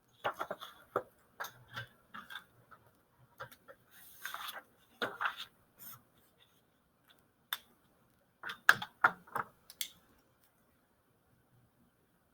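Irregular clicks, taps and knocks, like objects or a device being handled, in a small room; they stop about ten seconds in.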